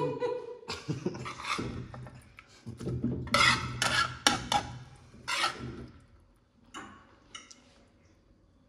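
Metal spatula scraping and clanking against a wok-style frying pan as fried fish and sauce are scooped out and onto a plate. The scrapes come in quick strokes, loudest about halfway through, then thin out to a few light clinks.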